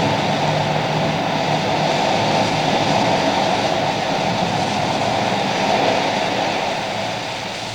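A steady rumbling noise that eases off a little near the end.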